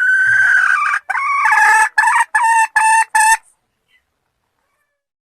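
Red junglefowl (wild chicken) rooster crowing: a long rising note held for about a second, then a broken, choppy run ending in four short clipped notes. The crow stops abruptly about three and a half seconds in.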